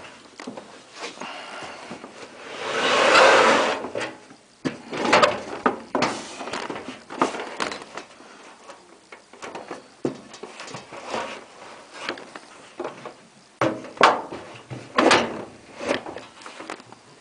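Knocks, clicks and scraping from hands working on the opened-up tumble dryer's drum and panels, with one longer, louder rasping scrape about three seconds in.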